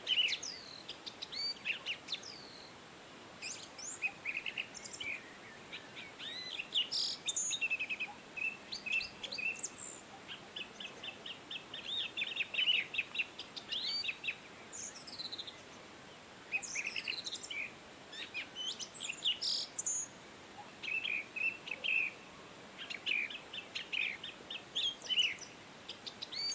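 Songbirds chirping and singing: rapid trills and short high whistled notes coming in clusters, over a faint steady hiss.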